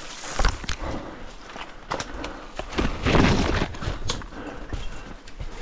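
Footsteps and rustling through bush vegetation, with scattered knocks and clicks and a louder rustle about three seconds in.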